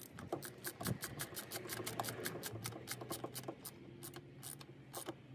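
Small socket ratchet clicking steadily, about five clicks a second, as it turns the screw of a hose clamp to tighten it on a coolant hose.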